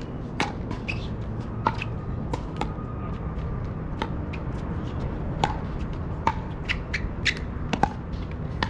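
Pickleball paddles striking a plastic ball: sharp pocks, a dozen or so at irregular intervals and of varying loudness, over a steady low rumble.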